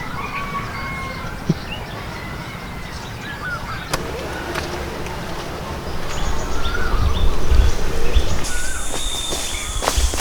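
Wild birds giving short chirps and calls over steady outdoor noise, with a couple of sharp clicks and a low rumble that grows louder in the second half.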